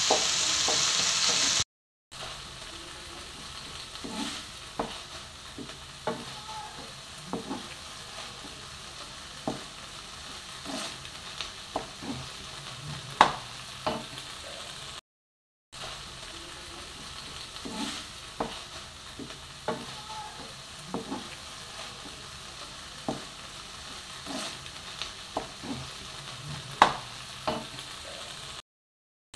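Beef with onions and peppers sizzling in a non-stick wok while a wooden spatula stirs it, scraping and knocking irregularly against the pan. The sizzle is louder for the first couple of seconds, and the sound drops out briefly twice.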